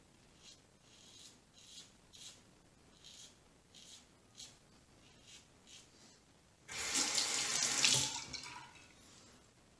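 A Rockwell 6S safety razor with a Feather blade scraping through lathered stubble in a series of short strokes, about two a second. About seven seconds in, a tap runs for about two seconds and is the loudest sound.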